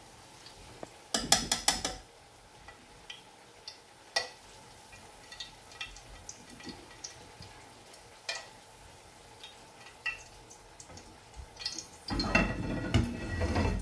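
Metal kitchen tongs clinking against a pan and a ceramic plate while fried bitter gourds are lifted out and handled: a quick run of sharp clinks about a second in, scattered light clicks, then a longer, louder clatter near the end.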